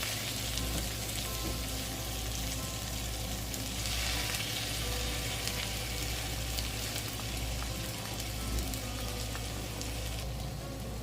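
A pot of green beans with bacon, ham, onion and mushrooms sizzling steadily as it cooks. The high hiss of the sizzle thins out near the end.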